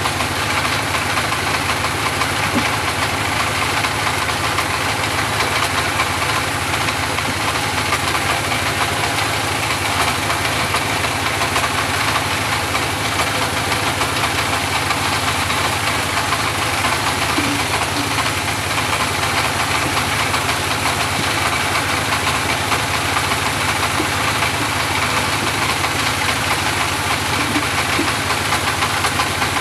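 Engine of a homemade portable bandsaw mill running steadily at an even speed.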